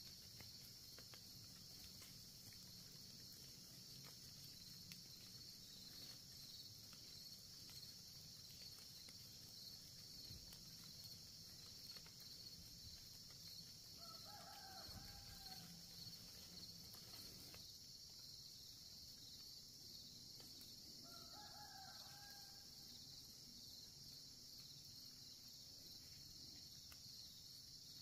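Quiet woodland ambience: a steady, high-pitched insect chorus, with two short pitched animal calls about seven seconds apart near the middle.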